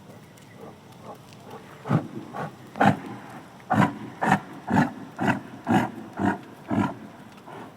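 A large animal giving a series of about ten short, pitched calls at an even pace of about two a second, beginning about two seconds in and stopping near the end.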